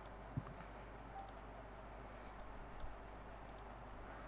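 A handful of faint, sharp computer-mouse clicks spread over a few seconds, from someone clicking through a virtual tour on screen, with one soft low bump about half a second in, over a steady low hum.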